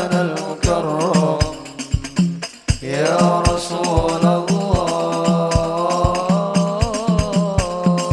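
Sholawat (Islamic devotional song) performed live: a voice holds long, ornamented notes over regular drum strokes and a steady low accompaniment. The music drops away briefly about two and a half seconds in, then picks up again.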